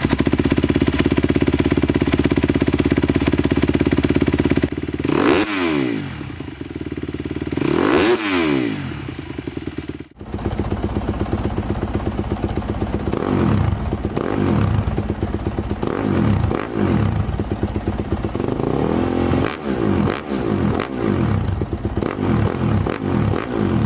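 Single-cylinder 250cc four-stroke motocross bike with an aftermarket exhaust, revving hard. It holds a steady high rev for about four seconds, then gives two big revs that rise and fall back. After a break about ten seconds in, it gives a long run of quick throttle blips.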